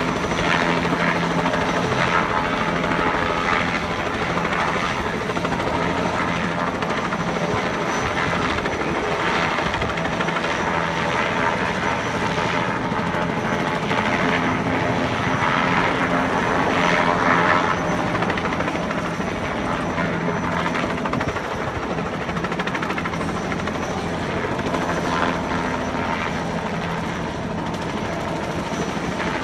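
Two-bladed light helicopter flying low overhead: steady rotor and engine noise, swelling a little about two-thirds of the way through and easing slightly near the end.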